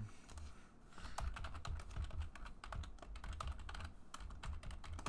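Typing on a computer keyboard: a quick, irregular run of key clicks that starts just under a second in.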